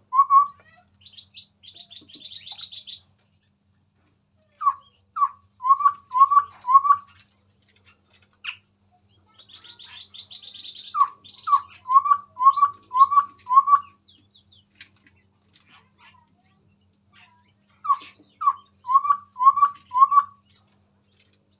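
Chestnut-rumped babbler singing: three runs of five or six loud, hollow whistled notes at about two a second, with fast higher chattering trills between the runs.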